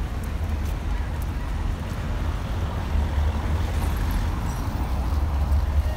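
City street ambience beside a busy road: a steady low rumble of traffic.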